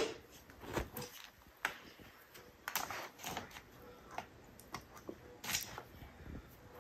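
Faint, irregular clicks and taps of small plastic toys knocking against a plastic playpen fence, with small clusters about three seconds in and again near five and a half seconds.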